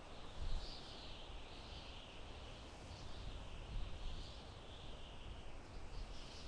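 Soft wind in a forest: a faint, even hiss of moving leaves that swells and eases every second or so, over a low rumble.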